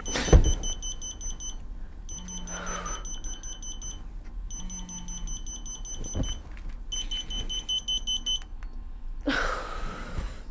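Mobile phone alarm going off: bursts of rapid high-pitched beeps, repeated with short gaps between them. Near the end, bedding rustles as the sleeper turns over.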